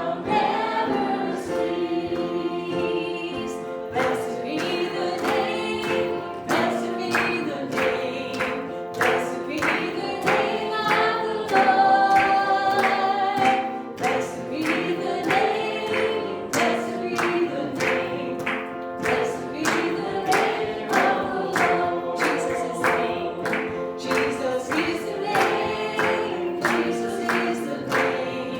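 Group of voices singing a hymn together over instrumental accompaniment with a steady beat, about two strokes a second.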